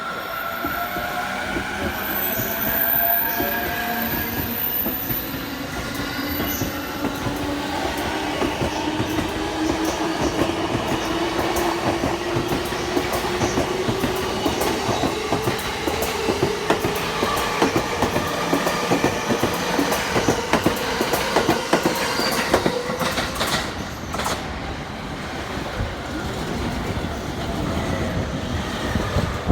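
Electric commuter train pulling out and picking up speed, its motor whine rising steadily in pitch for about fifteen seconds. The wheels clatter over the rail joints, with some wheel squeal.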